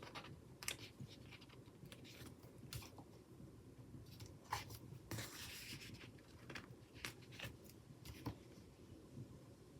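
Faint handling of paper stickers on a planner page: scattered light taps and clicks as they are peeled and pressed down, with a short paper rustle about five seconds in.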